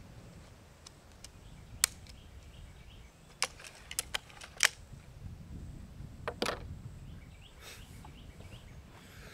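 Gamo Swarm Maxxim .22 break-barrel air rifle being cocked and loaded, giving a series of sharp clicks. There is one click near two seconds in, a quick cluster of four between about three and a half and five seconds, and a close pair about six and a half seconds in. They come from the barrel breaking and locking up and the 10X magazine feeding a pellet.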